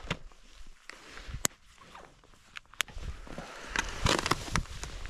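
Footsteps in snow: a few sharp single steps about a second and a half apart, getting busier near the end.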